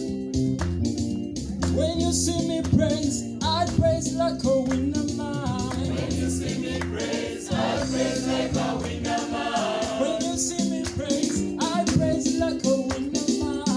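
A mixed choir of men and women singing a gospel praise song over instrumental backing, the voices coming in about two seconds in.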